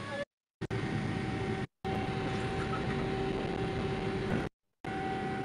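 An airliner's jet engine heard from inside the cabin: a steady whine of two tones over a rushing roar. It cuts out briefly three times as it is relayed over an online call.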